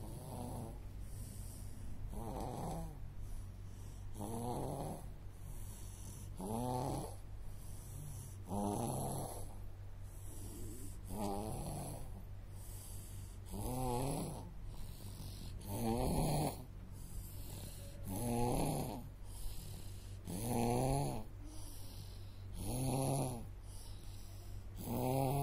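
A toddler snoring in deep sleep, one pitched, rattling snore on each breath, about every two seconds.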